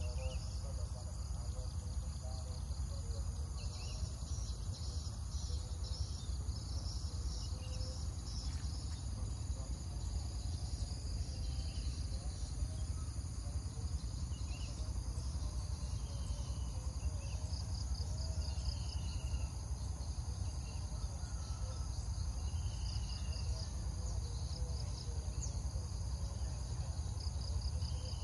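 A steady high-pitched insect chorus of crickets trilling across open rice fields. Short chirps repeat every second or two through the second half, over a steady low rumble.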